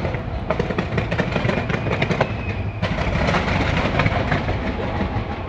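Many fireworks going off at once from the sides of the Taipei 101 tower: a dense, unbroken run of rapid cracks and pops over a steady low rumble.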